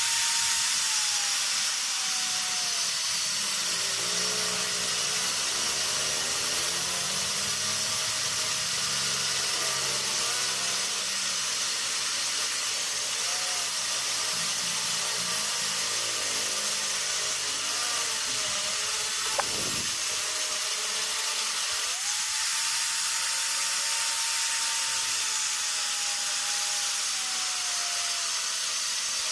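Electric arc welding: the arc's steady, loud hiss, struck just before and held without a break. There is one sharp click about twenty seconds in.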